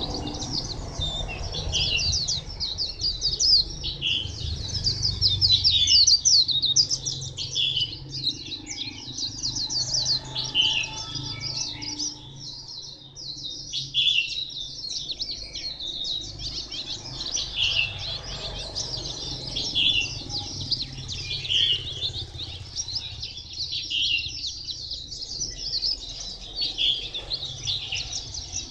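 White-eye singing a long, rapid, twittering song of high chirps and trills, with two short pauses partway through.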